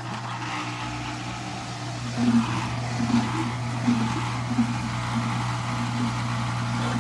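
Washing machine drain pump running with a steady hum. From about two seconds in, short pulses recur roughly every 0.7 s.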